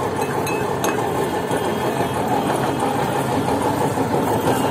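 Steady street traffic noise, mainly engines idling, with a few faint clinks about half a second in.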